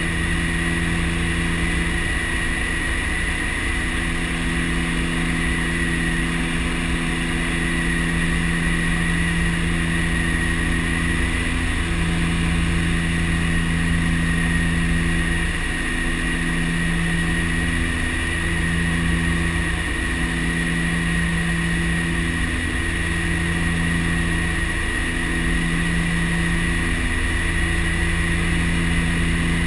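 Twin Pratt & Whitney PT6A turboprop engines and propellers of a DHC-6 Twin Otter droning steadily in cruise descent, heard inside the cockpit. A low drone pulses slowly every second or two under a steady high whine.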